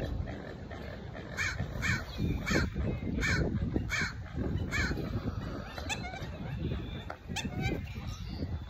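A bird giving a run of about seven harsh calls roughly half a second apart, then a few shorter calls near the end, over a low rumble of wind on the microphone.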